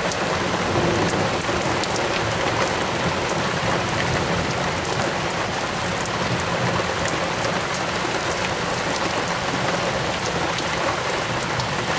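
Torrential downpour falling steadily: a dense hiss of heavy rain with individual drops ticking sharply close by.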